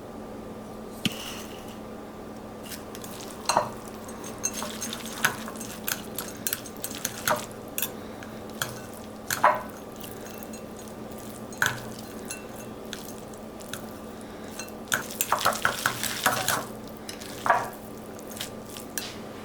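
Kitchen utensils clinking and tapping against dishes and pots: scattered irregular clinks, some with a short ring, with a quick run of them about fifteen seconds in. A steady low hum runs underneath.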